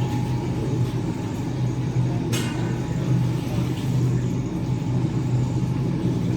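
Steady low hum, with one sharp clink about two seconds in.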